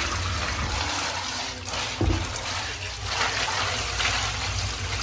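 Water pouring steadily into a shallow pool lined with a plastic sheet, rushing and splashing as it fills.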